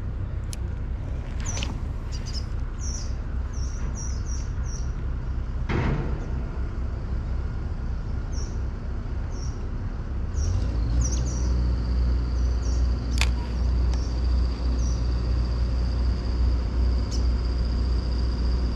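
Small birds chirping repeatedly over a steady low rumble of road traffic, which grows louder about ten seconds in, when a thin steady high whine also sets in. One dull knock about six seconds in.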